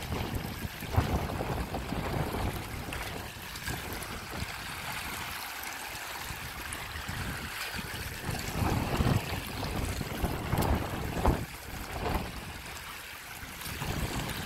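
Floodwater rushing and lapping along a road edge, described as really raging, with a few louder low bumps.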